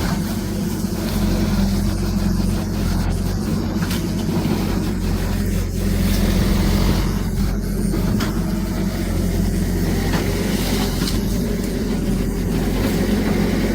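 Excavator's diesel engine running steadily under work, with scattered sharp cracks and knocks throughout.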